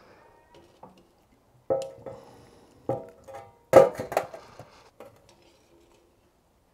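Metal wire-mesh skimmer clinking against a stainless steel tray and the cast-iron kazan while boiled fish heads and carrots are lifted out of the broth: several sharp metallic clinks with a short ring, the loudest about four seconds in.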